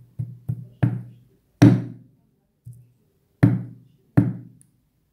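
A knife blade striking a husked coconut: a run of about seven sharp knocks at uneven intervals, each with a short low ring, the loudest about a second and a half in.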